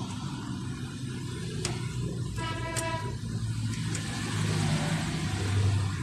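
A motor vehicle running, its low rumble growing louder toward the end, with a brief horn toot about two and a half seconds in and a couple of light clicks.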